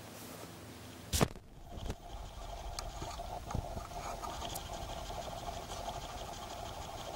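A sharp click about a second in, then a steady hiss with a faint whistle: compressed air escaping from a homemade airgun charged to about 10 bar.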